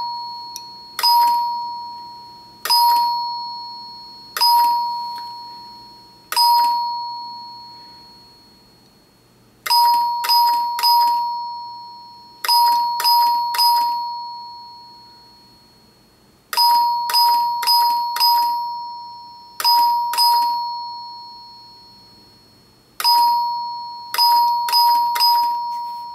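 Wheelock chime telephone ringer, made for the Bell System, sounding a single-tone chime like a doorbell, not a ding-dong. Each strike is one clear note that rings out and fades; at first the strikes come a second or two apart, then in quick runs of three or four.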